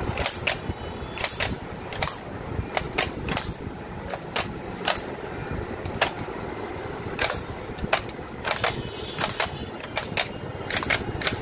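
Battery-powered foam-dart blaster firing its darts one after another, a string of sharp clicks at irregular intervals, some in quick pairs, over the steady whir of its flywheel motor.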